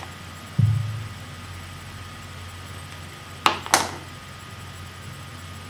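A dull low thump about half a second in, then two sharp clicks in quick succession a little after the middle, over a steady low electrical hum: knocks and clicks from handling a marker at a whiteboard.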